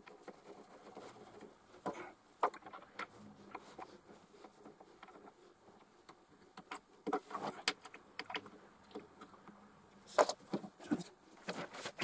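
Scattered light knocks, taps and rustles from hands handling a plush-covered cat scratching tree, with a louder cluster about ten seconds in.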